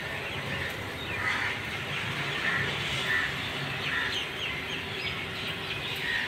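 Birds chirping several times, about a second apart, over the steady low hum of a petrol dispenser pumping fuel.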